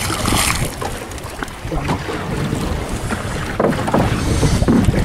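Wind buffeting the microphone over water sloshing around a small fishing boat, with a short burst of splashing at the start as a hooked trevally thrashes at the surface, and a few light knocks later on.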